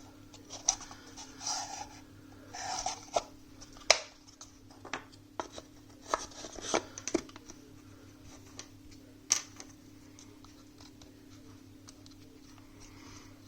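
Small puzzle box being handled, its sliding parts rubbing and scraping, with scattered sharp clicks and knocks; the sharpest knock comes about four seconds in, and the handling grows sparse in the last few seconds. A faint steady low hum runs underneath.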